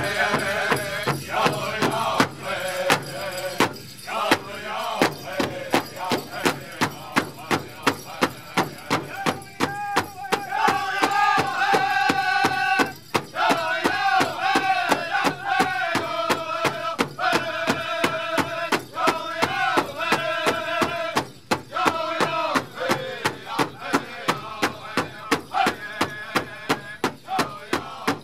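Powwow drum group singing an intertribal song: several voices sing in unison over a large hide drum that many drumsticks strike together in a steady, even beat.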